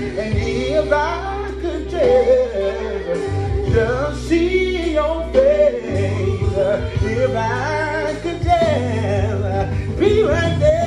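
A man singing gospel, a solo voice sliding and bending through long melismatic runs without clear words, over sustained low chords that change every few seconds.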